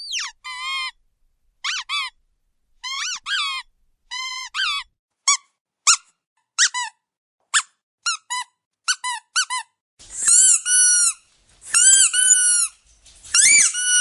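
Rubber squeaky dog toy squeezed again and again. First come many short squeaks, singly and in pairs, coming faster toward the ten-second mark. Then come three longer, louder squeaks with an airy hiss of air through the squeaker.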